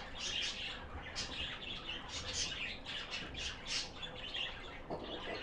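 Birds chirping in quick, irregular short calls over a low background hum.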